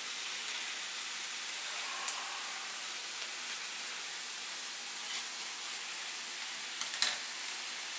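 Steady hiss of ground bison and onions sizzling in a cast-iron skillet, with sharp snips of kitchen scissors cutting open a plastic bag of broccoli florets: one about two seconds in and a quick few about a second before the end.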